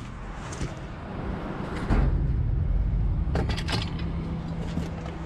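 Objects being handled and knocked about while rummaging in a dumpster, giving a few sharp clatters, about half a second in, near two seconds and a quick cluster later, over a steady low rumble.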